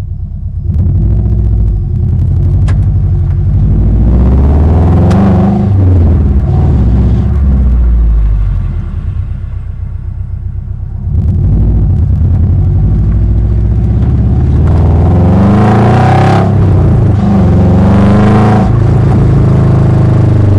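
Subaru Impreza's flat-four engine pulling the car along, its pitch rising and falling several times as it accelerates and eases off, with a quieter stretch partway through. A couple of sharp knocks sound in the first few seconds, of the kind the owner sets out to show: clunking from the 4.11 rear differential.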